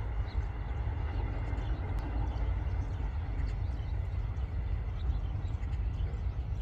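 Steady low rumble of outdoor background noise, with faint scattered high chirps of Eurasian tree sparrows.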